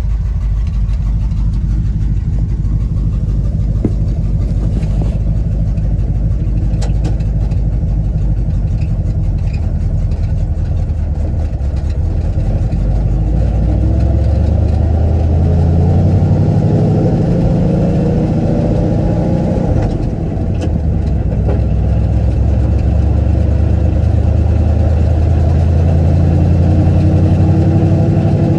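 1971 Ford highboy pickup's engine running, heard from inside the cab: a steady low note at first, then rising in pitch as the truck pulls away and accelerates. About two-thirds of the way through the note drops briefly, then climbs again.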